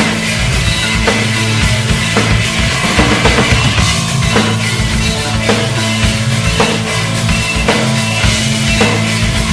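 Noise-rock band recording: a slow, heavy drum-kit beat with a strong hit about once a second over steady, droning low held notes.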